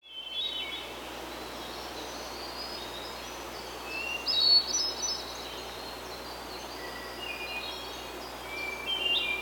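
Several songbirds calling and singing in short, high notes, loudest about four and a half seconds in and again near the end, over a steady background hiss.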